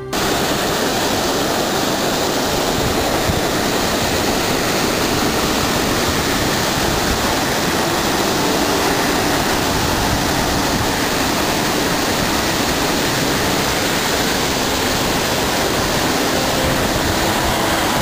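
Loud, steady rushing roar of a waterfall, an even wash of falling water without gusts, cutting in and out abruptly.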